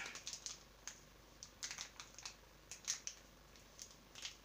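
Light, irregular clicks and rustles of hands handling small items on a wooden table while picking up a sachet of yeast.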